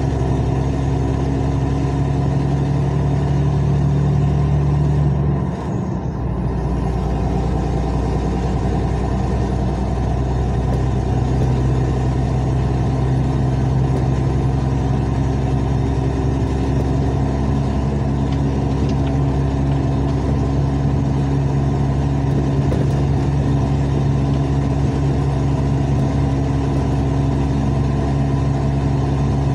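Truck engine running steadily under way, its exhaust loud because the exhaust flex pipe has burst and it now runs like a straight pipe. The engine note breaks off and dips briefly about five seconds in, then settles back to a steady run.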